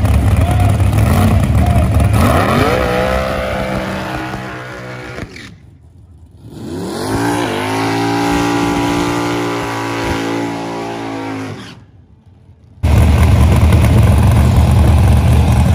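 Race car engines accelerating, their pitch climbing about two seconds in and again about seven seconds in, then holding steady for a few seconds. A heavy low rumble fills the start and the end, and the sound drops out twice, briefly.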